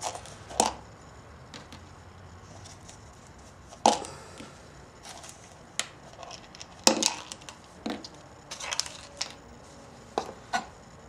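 Irregular clicks and knocks of small metal parts of a Victor phonograph's electric motor, such as the governor, brake and spindle, being handled and set down.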